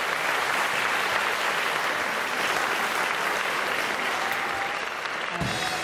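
Audience applauding steadily; music comes in just before the end.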